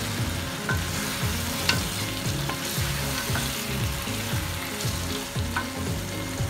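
Boiled mutton, onions and chopped tomatoes sizzling in hot oil in a non-stick kadhai as they are stirred and turned with a wooden spatula. A few sharp taps of the spatula against the pan.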